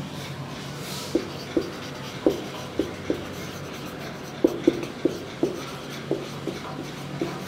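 Marker pen writing on a whiteboard: a quick, uneven run of short squeaks and taps as the letters are drawn.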